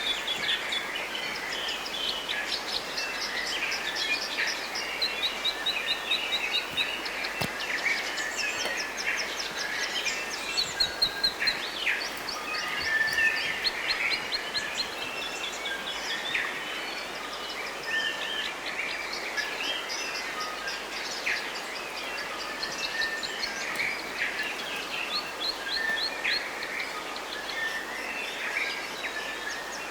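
Several forest birds singing at once, a dense chorus of chirps and quick trills, over a steady faint hiss.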